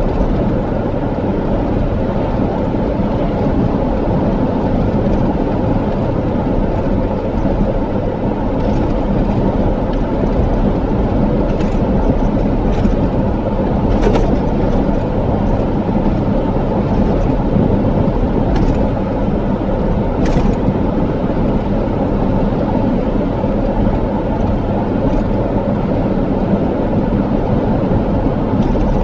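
A car driving at steady speed: constant road and engine rumble, with a few faint short clicks scattered through the middle.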